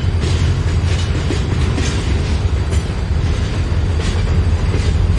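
Double-stack intermodal freight train rolling past close by: a loud, steady low rumble of steel wheels on rail, with irregular clicks as the well-car wheels pass over the track.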